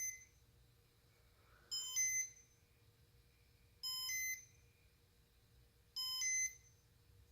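Casablanca Comfort Touch ceiling fan control giving a short two-note electronic beep about every two seconds, three times, as its test mode steps the light up in brightness. A faint steady hum runs underneath.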